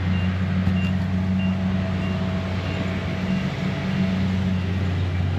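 A motor running with a steady low hum, and a short high beep repeating about every two-thirds of a second that fades out past the middle.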